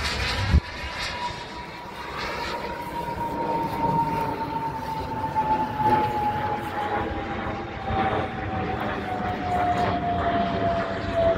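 Radio-controlled model airplane flying overhead, its engine a steady high whine that slowly falls in pitch, with a brief thump about half a second in.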